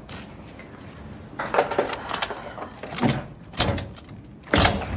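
Apartment front door being unlocked and opened: a series of short clunks and knocks from the handle and lock, the loudest near the end.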